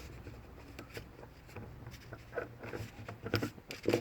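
Faint handling noises of manual transmission parts being put back, with light rustling and a few short knocks, the loudest near the end.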